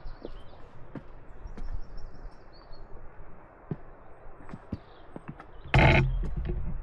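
Footsteps on a rocky lakeside path, heard as scattered irregular clicks, with faint high bird chirps. Near the end comes a brief, loud burst of noise.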